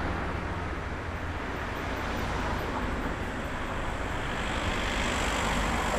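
Road traffic noise along a city street, a steady rush of passing cars that grows louder near the end as a vehicle approaches.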